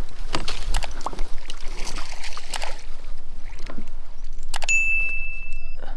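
Knocks, bumps and splashes as a large smallmouth bass is netted and landed on a kayak. Near the end a single high steady tone sounds for about a second.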